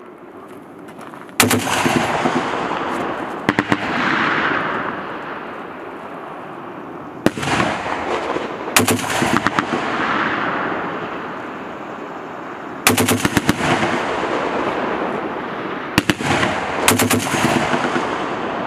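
M2 Browning .50 calibre heavy machine gun firing short bursts of a few rounds, about seven bursts a few seconds apart. Each burst is followed by a long rolling echo.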